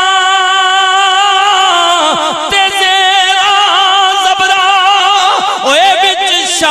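A man singing a line of verse into a microphone. He holds one long note for about two seconds, then breaks into wavering, ornamented runs that climb higher near the end.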